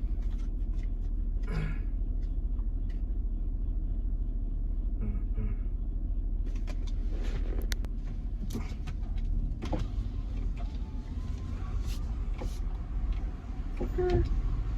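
Car engine and road rumble heard from inside the cabin as the car drives, with scattered clicks and knocks in the second half.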